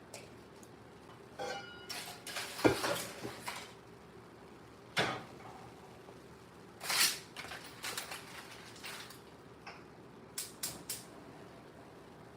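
Dishes, pots and utensils clinking and knocking as they are handled at a kitchen sink: a scatter of separate knocks and clatters, some with a short ring, the sharpest about two and a half seconds in.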